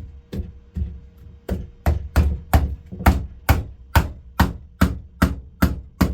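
Steady, rhythmic blows, about two and a half a second, driving a wooden handle into the eye of a broad axe head, each a heavy wooden knock. The epoxy-coated handle is being forced down into its seat.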